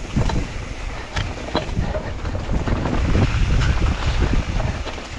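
Wind buffeting the microphone during a mountain-bike descent, a heavy low rumble that peaks in the middle, with sharp knocks and rattles from the bike over rough trail.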